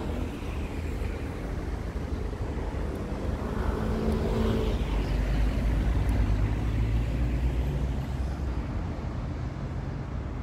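Street traffic: a motor vehicle passes close by, its engine and tyre noise growing louder towards the middle and then fading.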